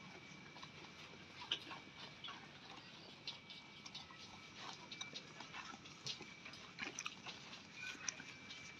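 Jawarandu goats chewing and tearing at fresh-cut grass: faint, irregular crisp crunching clicks.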